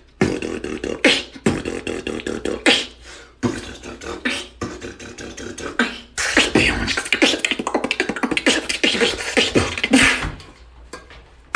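Human beatboxing: a fast run of mouth-made kick, snare and click sounds that grows louder and denser about halfway through, then fades out about a second before the end.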